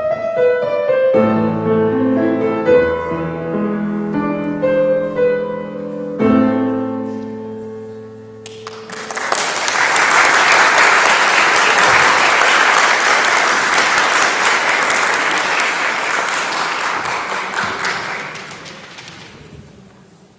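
Grand piano playing the last bars of a piece and ending on a chord that rings out, then the congregation applauding for about ten seconds before the clapping fades away.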